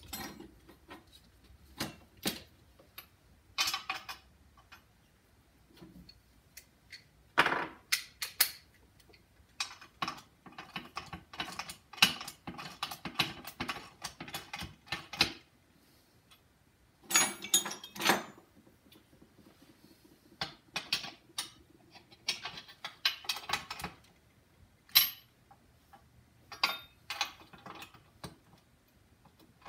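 Socket ratchet wrench clicking in quick runs as bolts on a hydraulic press frame are tightened, with scattered clinks of tools and hardware between the runs.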